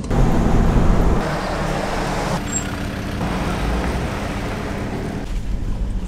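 Four-wheel-drive vehicles driving on rough tracks: a steady engine drone under tyre and road noise, changing abruptly a few times.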